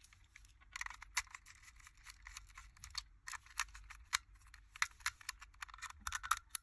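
A thin metal pick scratching and clicking against the plastic underside of a diecast model car, in a string of short, irregular scrapes and ticks that start about a second in.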